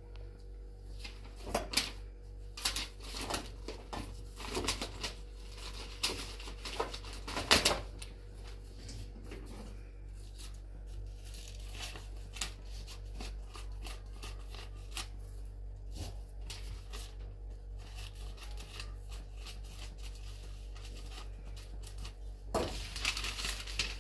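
Kitchen handling sounds from cooking work: a run of scattered clicks, knocks and rustles, busiest in the first several seconds and picking up again near the end, over a steady low hum.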